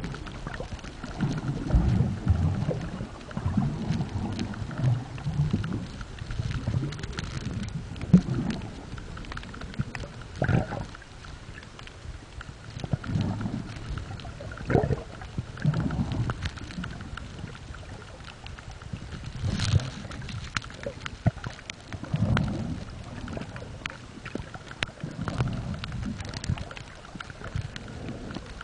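Muffled underwater sound from a camera held below the surface: irregular low rushes and thumps of water moving as the swimmer swims, every second or two, with scattered sharp clicks.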